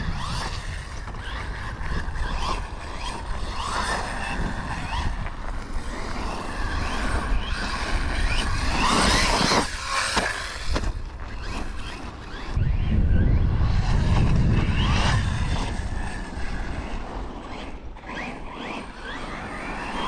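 Brushless electric motor of a VRX Cobra 1/10 RC car on a 4S battery, whining and rising and falling in pitch as the throttle is worked, with a louder rising whine about nine seconds in. A low rumble runs from about twelve to fifteen seconds in.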